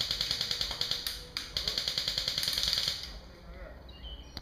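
Airsoft gun firing on full auto: a rapid burst of shots, a brief pause just over a second in, then a second burst that stops about three seconds in.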